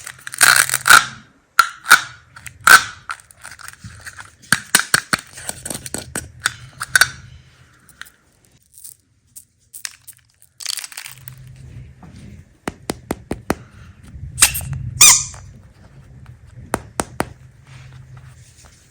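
Candy and slime being cut and squished, close up: sharp clicks, squeaks and crackles in irregular bursts, with a brief pause about halfway through.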